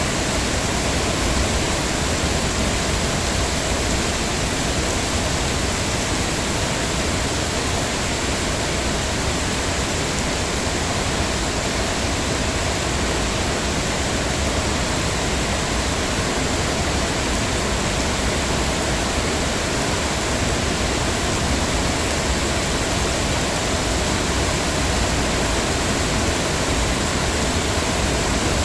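Heavy rain falling steadily, a constant dense hiss without distinct drops or breaks.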